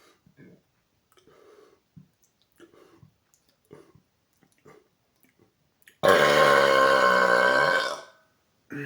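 A man lets out one long, loud, deep burp lasting about two seconds, about six seconds in. Before it there are only faint small clicks and breaths.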